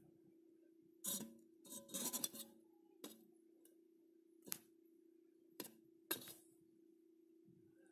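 Scattered small sharp clicks and a short cluster of rustling clicks about a second in, over a steady low hum.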